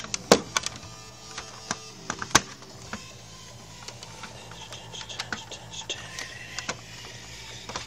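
Irregular clicks and knocks of hands handling and adjusting plastic parts and cables, with faint music in the background.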